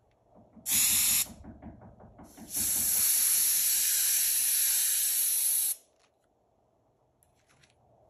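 Paint sprayed through a scale-pattern mesh stencil onto a duck lure. It comes in two hissing bursts, a short one about a second in and then a steady one of about three seconds, which cuts off sharply.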